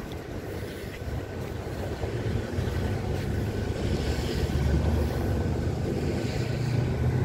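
Steady low rumble of a running motor over outdoor background noise, growing slightly louder toward the end.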